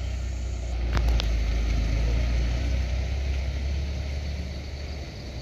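Diesel truck engine running with a steady low rumble that slowly fades toward the end, with two short clicks about a second in.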